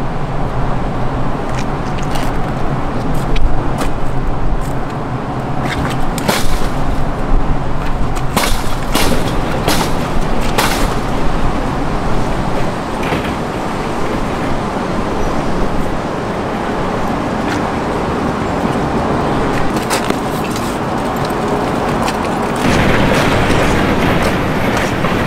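City street noise: traffic running steadily, with a few sharp knocks scattered through it.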